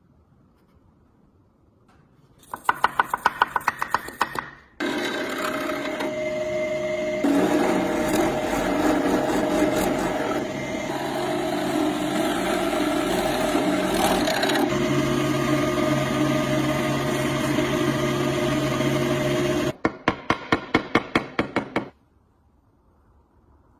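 Rapid back-and-forth scraping or filing strokes, about five a second. Then a power tool runs steadily against metal for about fifteen seconds, with a few seconds of rapid strokes again near the end.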